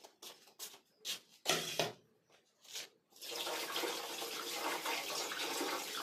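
Boiled jolpai (Ceylon olives) being mixed with salt and turmeric in a steel bowl: a few short knocks and clicks, then from about three seconds in a steady rushing rattle as the fruit is tossed against the steel.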